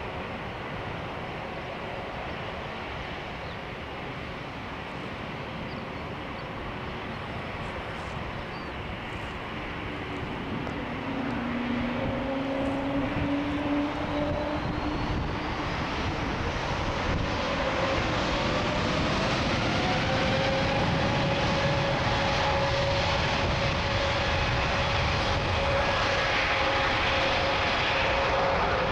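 Jet airliner engines running at an airport, growing louder from about ten seconds in, with whining tones that rise in pitch and then hold steady.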